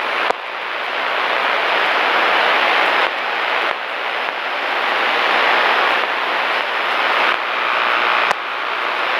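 Steady rushing hiss in the Cessna's radio and intercom audio, with no voice on it. There is a click just after the start and another near the end.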